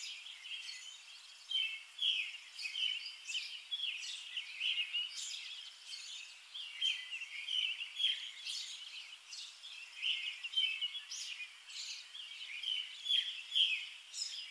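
Small birds chirping and singing in a busy chorus of short, high calls, several a second, overlapping without pause.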